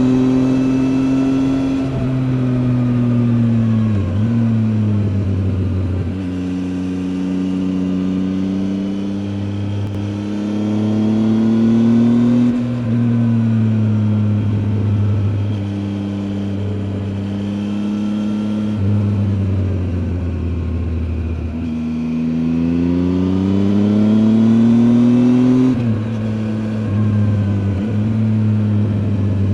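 Triumph Tiger 800 XCA's 800 cc inline three-cylinder engine running under way, its pitch climbing and falling with the throttle and stepping sharply at gear changes several times. There is a steady hiss of wind and road noise under it.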